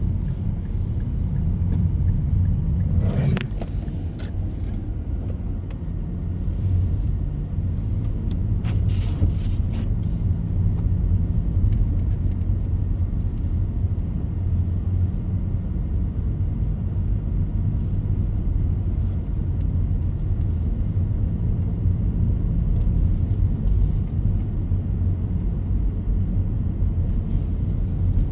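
Car driving on a snow-covered road: a steady low rumble of engine and tyres, with a couple of brief sharper sounds about three and nine seconds in.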